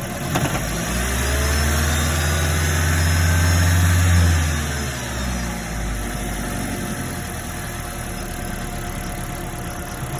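Third-generation Toyota Prius 1.8-litre four-cylinder petrol engine running with a knock. Its note rises and grows louder for about four seconds, then drops back around the middle to a steady clatter. The knock follows failure of the car's electric water pump.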